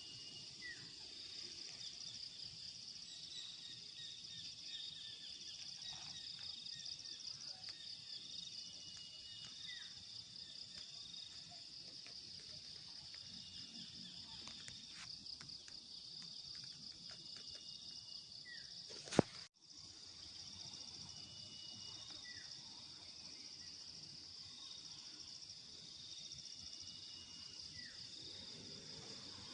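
Faint forest ambience: a steady, high, fast-pulsing insect chorus, with occasional short falling bird whistles. A sharp click about two-thirds of the way through is followed by a brief dropout.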